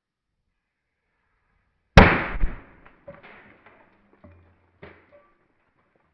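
A pressurised can bursting with a single loud bang about two seconds in, dying away over half a second, followed by a few faint knocks.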